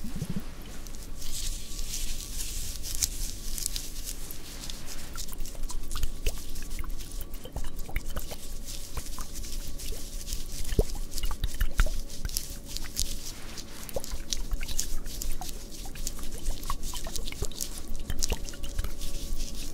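Liquid-filled glass globe wands handled close to the microphone, giving many irregular small clicks and taps over a faint hiss.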